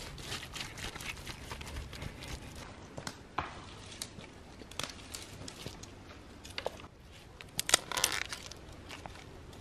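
Hands working loose soil, dry leaves and twigs, making scattered crunching and crackling with small sharp snaps. A cluster of louder cracks comes near the end.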